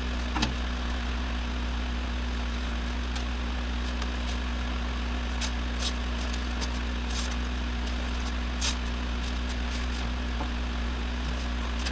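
A steady low mechanical hum, like a shop machine or fan running, with a few light clicks and taps scattered through it.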